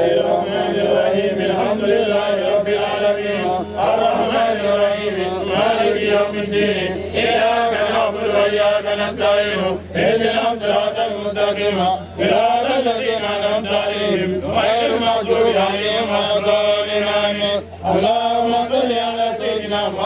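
A man's voice chanting a prayer in a long melodic recitation, with short pauses for breath between phrases.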